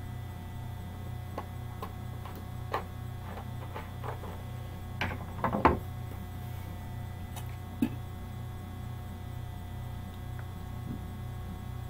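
Steady electrical hum that pulses a couple of times a second, with scattered light clicks and taps over it, loudest in a short cluster a little past halfway.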